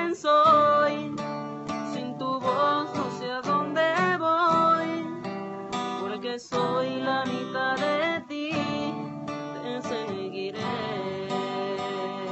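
A man singing with his own acoustic guitar, strummed steadily under the vocal line.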